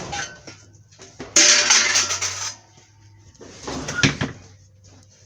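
Household items being handled and shifted: a loud rustling scrape lasting about a second, starting a second and a half in, and a shorter clatter around four seconds.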